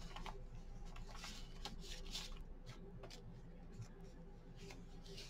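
Paper rustling and sliding as cards and tags in a handmade paper journal are handled and turned, in soft irregular swishes with a few light taps.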